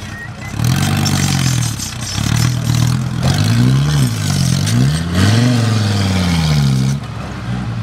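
Engine of a boxy Mercedes-Benz G-Class offroader revving up and down several times as it climbs over rock and mud, with a couple of quick blips followed by one longer rise and fall. The wheels are spinning and throwing dirt under the load.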